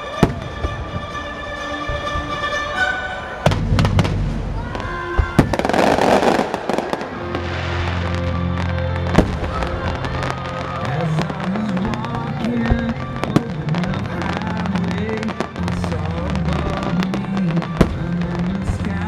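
Aerial fireworks shells bursting with sharp bangs throughout, with a dense, noisy burst around six seconds in, over music playing steadily underneath.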